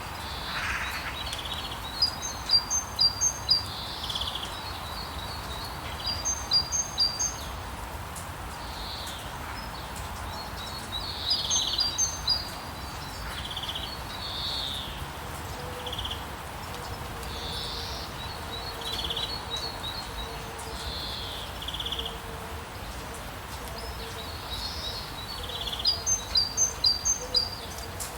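Steady hiss of falling rain with songbirds singing over it: quick runs of high chirps come every few seconds, the loudest near the start, in the middle and near the end.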